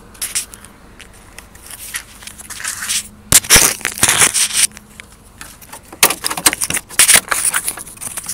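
Irregular bursts of crackling, crunching noise close to the microphone, typical of a handheld camera being moved and rubbed. The engine is not being cranked and is not running.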